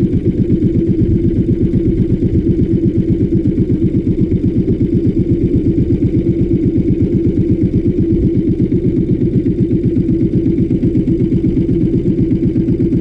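A small fishing boat's motor running steadily at trolling pace, loud and close, with a fast, even pulse.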